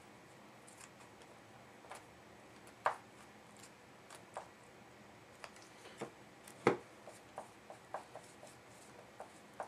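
Scattered soft taps and clicks of a paintbrush and a paper-covered canvas being handled on a tabletop. The loudest knock comes about two-thirds of the way through.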